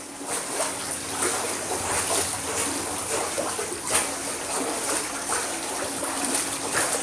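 A dog swimming in a pool: steady splashing and lapping of water stirred by its paddling.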